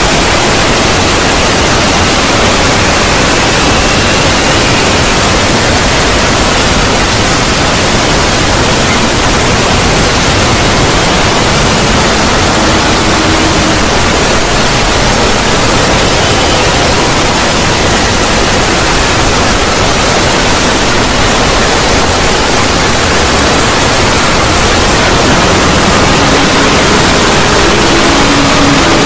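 Loud, steady static-like noise filling the whole range, with faint tones buried in it: a distorted, creepy synthetic sound effect.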